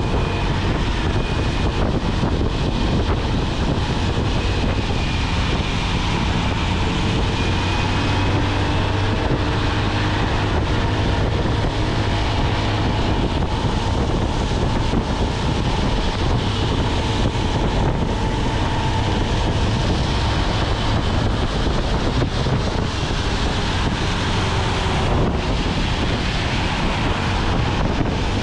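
Steady wind noise on the microphone from riding a 125 cc motorcycle at speed in the rain, with the engine's faint steady tone underneath, drifting slightly in pitch.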